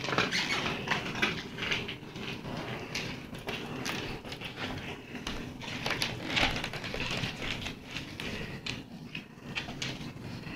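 A cat scrabbling and pouncing on a hardwood floor while batting a loose cord: irregular light taps, scrapes and rustles.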